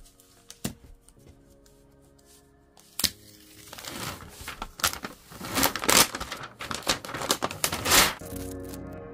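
Clear plastic cover film being peeled back off a Cricut cutting mat, crinkling loudly for about four seconds, after a couple of sharp taps. Background music plays underneath.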